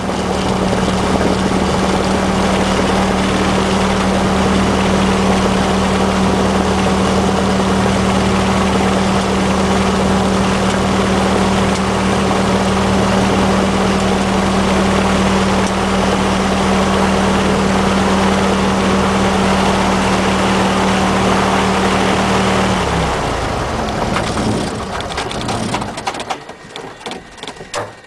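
A Cessna's piston engine and propeller idling steadily, heard from inside the cabin. About 23 seconds in the engine is shut off and its note sags and dies away as the propeller winds down, leaving a much quieter cabin.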